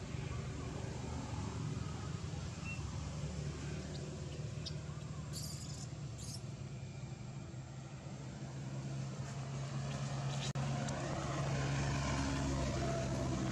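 Steady low engine hum of a motor vehicle running in the background, with two brief high-pitched sounds about five to six seconds in.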